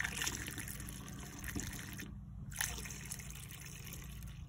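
Thin fuel-additive mixture poured from a plastic measuring cup through a plastic funnel into a metal can, trickling and splashing in the funnel, with a short break in the pour about two seconds in.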